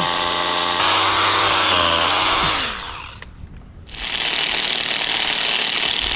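Milwaukee M18 cordless rotary hammer drilling a bolt hole into sandstone, its motor pitch falling as it spins down about two and a half seconds in. After a short pause, a cordless impact driver hammers to tighten a bolt through its hanger.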